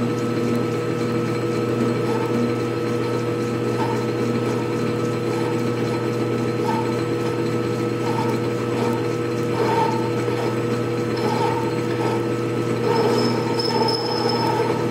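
Atlas 618 bench lathe running steadily with a steady hum from its motor and drive, while a hand-swung ball-turning tool cuts the spinning bar. Short squeaks from the cut come and go, more often near the end.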